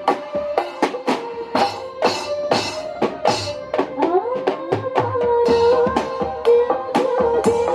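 Modern marawis ensemble playing: hand drums strike a fast, steady rhythm under a held melody line that slides between notes.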